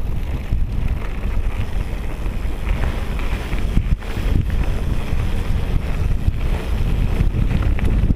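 Wind rushing over a bike-mounted action camera's microphone during a fast mountain-bike descent, a steady low rumble, mixed with tyres crunching over loose gravel and a few sharp knocks from the bike on rough ground.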